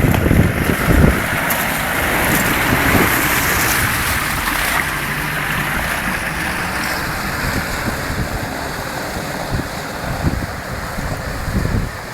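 Off-road 4x4 driving through mud and water: a steady rushing, splashing noise with low engine rumble and wind buffeting the microphone. The rushing eases off about halfway through.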